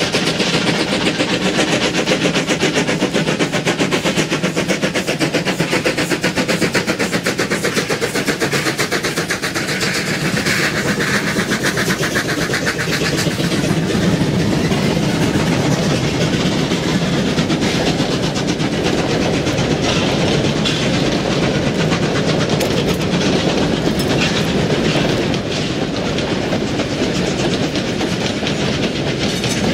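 Two double-heading steam locomotives, NM25 and W22, passing with rapid, overlapping exhaust beats. After about ten seconds the chuffing gives way to the steady clickety-clack of the carriages' wheels rolling by on the rails.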